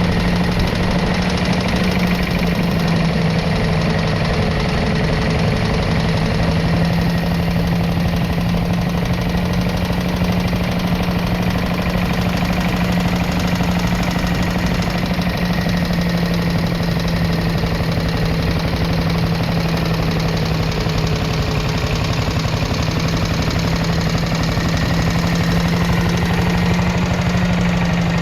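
JAP 600 cc single-cylinder petrol engine of a 1941 Trusty pedestrian plough tractor running at a steady speed, with an even, rapid beat.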